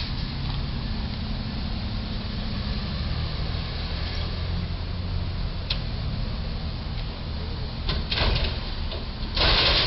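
Street noise with a steady low engine-like rumble and hiss, broken by two short, louder rushing noises about eight and nine and a half seconds in.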